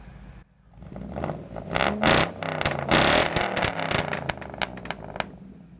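LS V8 engine in a 1963 Chevrolet Impala being revved: a few throttle blips, loudest about two and three seconds in, then settling back down toward idle.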